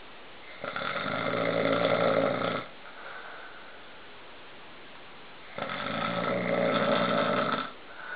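A man snoring: two long snores about five seconds apart, each lasting about two seconds, with a soft breath out after each.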